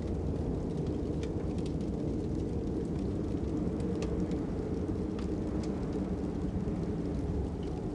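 Steady low rush of wind with a wood fire crackling over it, sharp pops scattered through it.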